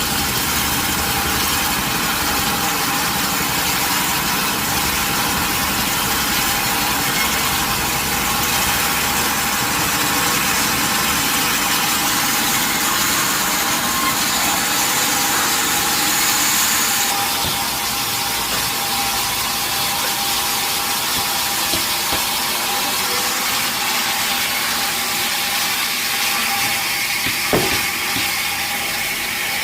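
Sawmill machinery running steadily, with a constant whine over a broad mechanical noise. The sound shifts a little past halfway, and there is one sharp knock near the end.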